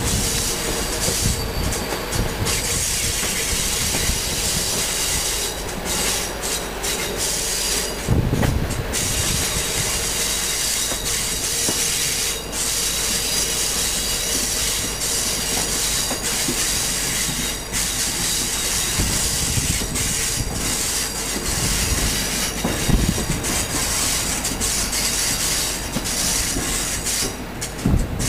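Passenger train coaches running at speed through a curve, heard from an open window: a continuous rush of wheel and rail noise with a high, steady squeal from the wheels in the bend, and a few sharp knocks from rail joints.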